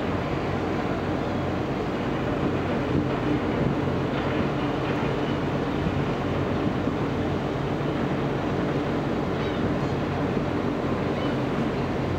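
Steady distant harbour and city din, an even hiss of traffic and boat engines with a faint low hum and no single event standing out.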